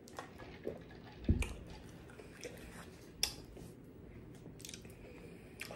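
Close-miked mouth sounds of sipping from a straw and swallowing. A low thump comes about a second in and a sharp click about three seconds in as the plastic tumbler is handled and set down on the table.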